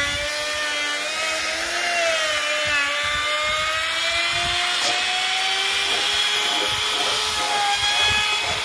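Makita trim router running at speed, its bit trimming the edge of a PVC laminate sheet: a steady whine whose pitch sags slightly under load and then climbs slowly.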